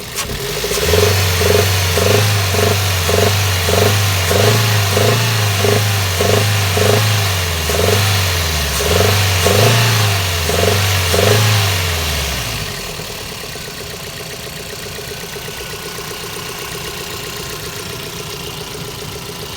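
Toyota 2NZ-FE 1.3-litre four-cylinder engine revved in repeated short throttle pulses, about two a second, for around eleven seconds, then dropping back to a steady idle. It is demonstrating a rumble that the owner hears at high revs, which a mechanic with a stethoscope judged not to come from the timing chain.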